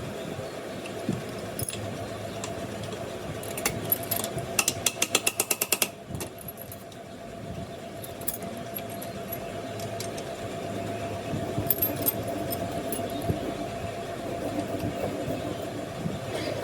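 A steady mechanical hum, with scattered metallic clinks and a quick run of about a dozen light taps around five seconds in.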